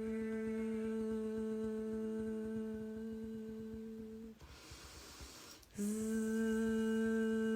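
A woman humming one long, steady note as a qigong healing-vibration sound. The hum fades out about four seconds in, a breathy in-breath follows, and the hum starts again at the same pitch near six seconds.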